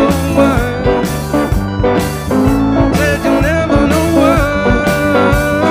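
Background music: a live recording of a song, with singing over guitar and a band keeping a steady beat.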